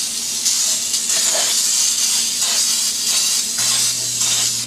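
Aerosol can of Baker's Joy baking spray hissing in one long continuous spray as it coats a bundt pan, the hiss pulsing slightly as the spray is moved around. A faint steady low hum runs underneath.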